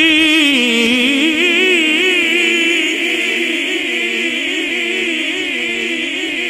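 A man singing a Punjabi naat unaccompanied, drawing out one long held note with a wide, wavering vibrato. The pitch dips about half a second in and then holds steady.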